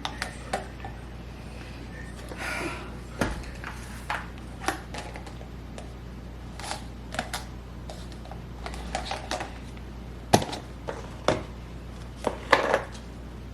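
Food containers and packages being handled and set down while a fridge is cleaned out: a string of irregular clicks, knocks and light clatters, the sharpest about ten seconds in and a few more near the end, over a steady low hum.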